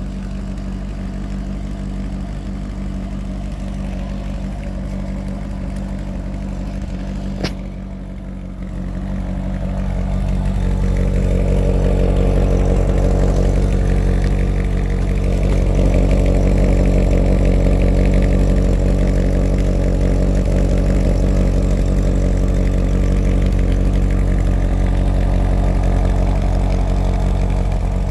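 2010 Chevrolet Corvette V8 idling steadily at the quad exhaust tips, an even low exhaust note with no revving. It grows louder about ten seconds in and holds there, with a single sharp click about seven seconds in.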